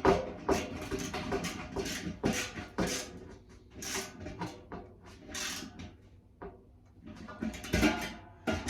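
Hand tools working screws into the tumble dryer's metal drum-bearing housing: a run of sharp metallic clicks and clinks, about two a second, thinning out midway, with a louder cluster near the end.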